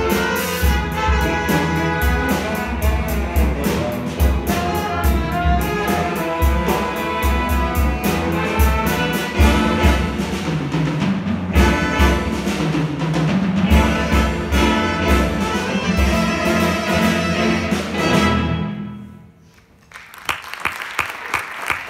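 Small jazz combo playing a funk tune: saxophones and trumpets over sousaphone, piano, electric guitar and drums, with a steady low beat. The band stops about nineteen seconds in, and audience applause starts a second later.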